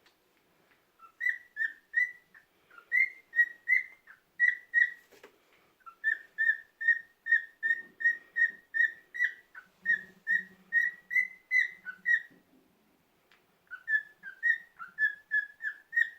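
Cockatiel whistling its song: a string of short, clear whistled notes, about three a second, in three runs with brief pauses between them.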